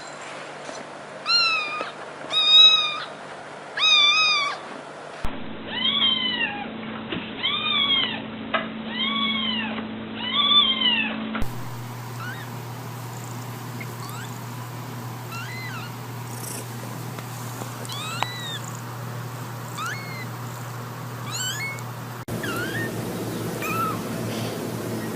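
Domestic cats meowing over and over through several short clips. The calls come in groups of three or four, each one rising and then falling in pitch; the later ones are fainter and higher.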